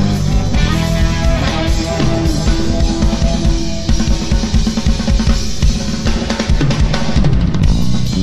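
Live instrumental rock band playing, the drum kit loudest with busy snare and bass-drum strokes, over electric bass and electric guitar.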